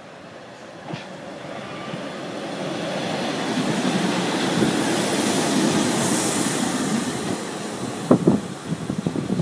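A Pacer diesel multiple unit passing close by: its engine and wheels on the rails build to a peak about halfway, then fade as it goes away, with a few sharp knocks near the end.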